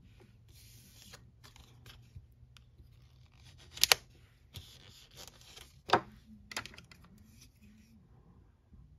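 Scraper card dragged across a metal nail-stamping plate in short scratchy strokes, with a few sharp clicks, the loudest about four seconds in.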